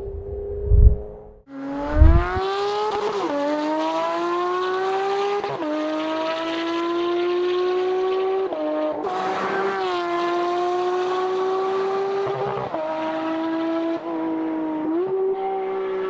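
Porsche 992 GT3's naturally aspirated flat-six with an aftermarket exhaust, pulling to high revs and shifting up several times: the high-pitched note climbs, drops at each shift and climbs again. Two loud knocks come in the first two seconds.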